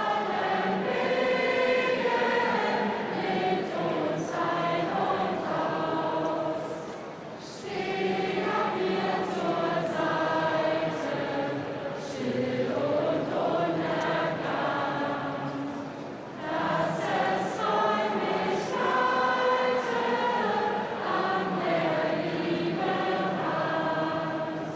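A mass of voices singing a song together with a leading choir, in long held phrases, with two brief breaks about seven and a half and sixteen and a half seconds in.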